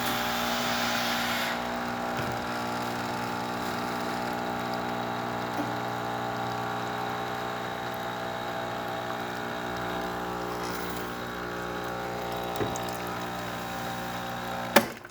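Jura Impressa E8 espresso machine's vibratory pump running steadily as it pushes water through the brew unit to pull a shot, with a hiss in the first second or so. It cuts off with a sharp click about a second before the end as the brew cycle finishes.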